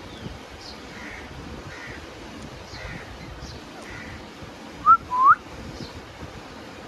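Ringneck parrot giving two short, clear whistles that glide upward, about five seconds in, over faint, regularly repeated chirps of small birds.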